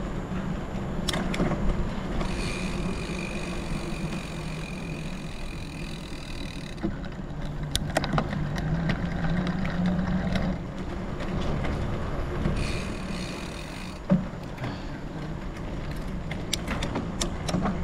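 Gravel bike riding over rough off-road ground: steady rumbling noise with scattered rattling clicks, and a high steady whine for a few seconds, twice.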